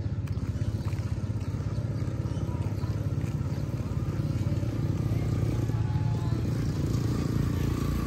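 Small motorcycle engine running steadily as a continuous low rumble, growing slightly louder in the second half.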